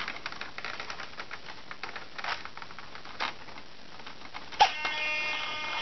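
Small clicks and rattles of a LiPo battery and its plug being handled in an RC plane's plastic battery bay, then a sharp click as the connector goes home about four and a half seconds in. A steady electronic tone follows at once: the plane's brushless motor controller beeping as it powers up.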